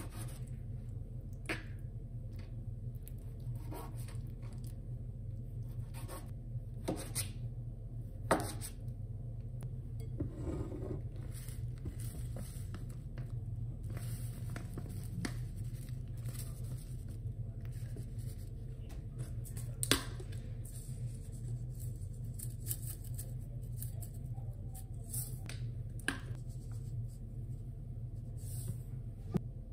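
Chef's knife cutting raw chicken on a thin plastic cutting mat: scattered taps and scrapes of the blade, with occasional sharper knocks. Later, spices are shaken into a glass bowl. A steady low hum runs underneath.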